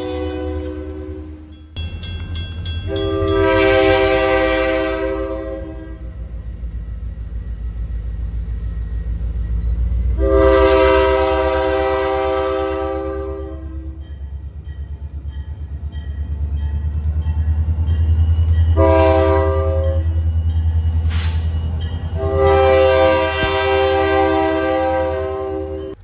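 Diesel locomotive air horn sounding over the low rumble of the approaching locomotives: a blast ending about two seconds in, then long, long, short, long, the standard grade-crossing signal.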